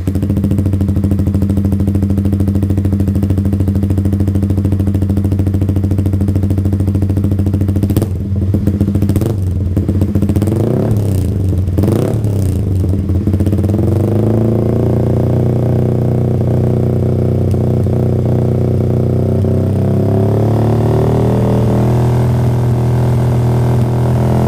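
Yamaha R15 V3 single-cylinder engine idling through an aftermarket exhaust, blipped several times in quick succession from about eight seconds in, then settling back to a steady idle.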